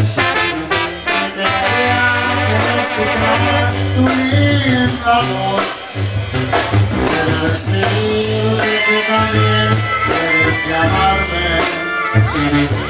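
A Mexican banda playing live in an instrumental break: clarinets and brass carry the melody over drums and a steady low bass line.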